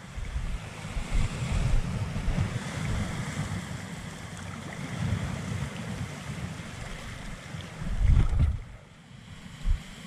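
Wind buffeting the microphone over the wash of small waves in shallow sea water. The gusting rumble eases off about eight and a half seconds in, leaving mostly the water.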